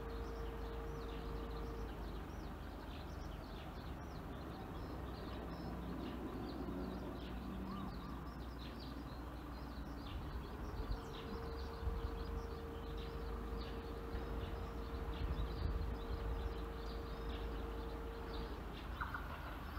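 Trackside outdoor ambience: many short bird chirps over a low steady rumble, with a faint steady hum held for several seconds, twice. Near the end a new higher steady tone comes in.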